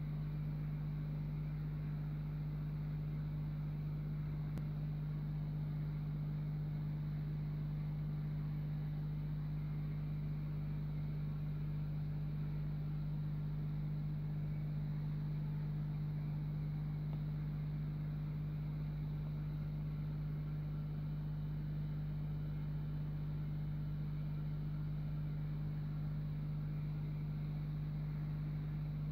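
Steady electric hum of an aquarium pump, one constant low tone with fainter overtones, unchanging throughout.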